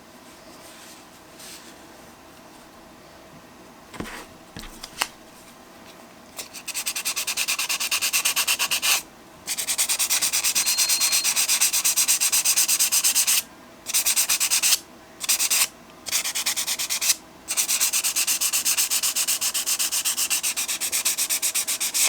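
Metal speaker badge rubbed back and forth on wet-and-dry 400-grit abrasive paper in rapid strokes to polish off tarnish and pitting. A couple of light clicks come first, and the sanding starts about six seconds in and stops briefly several times.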